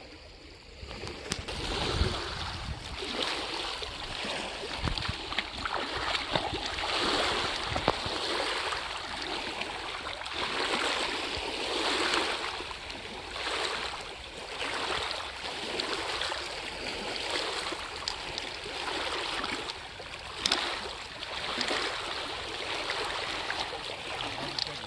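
Lake water sloshing and lapping around a person wading knee-deep, swelling and fading about once every second or two. Wind gusts rumble on the microphone now and then.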